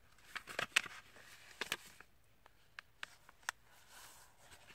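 A sheet of letter/A4 paper crinkling and crackling as it is folded and its crease pressed flat by hand: a cluster of crackles about half a second in, then a few separate clicks.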